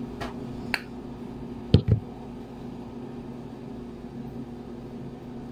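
Steady hum of a window-type room air conditioner, with a couple of small clicks and a louder double knock just under two seconds in from handling a skincare tube.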